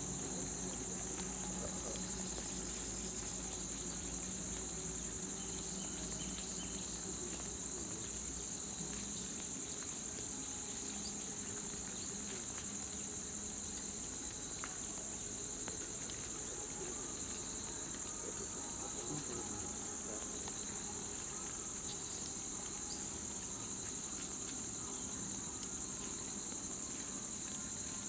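A steady, high-pitched insect chorus that runs without a break.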